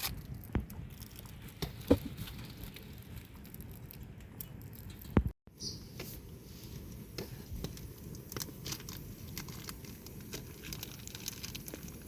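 Rain pattering, with many scattered sharp drip-like ticks and a few louder knocks. It cuts out briefly about five seconds in.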